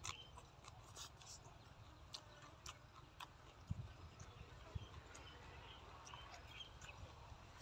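Faint chewing of a mouthful: scattered soft, moist clicks over a low steady rumble.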